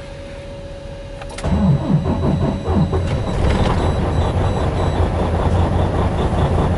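Semi truck's diesel engine cold-starting at 4°F: a steady tone, then about a second and a half in the engine cranks and catches at once, a couple of quick pitch swings, and runs steadily.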